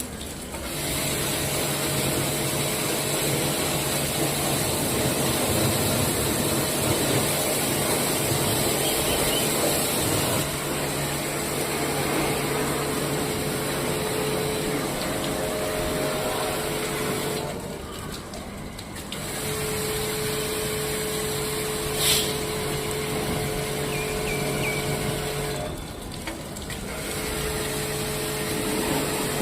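Pressure-washer pump running and spraying water in a steady hiss over a motor hum, easing off briefly twice as the spray stops and restarts.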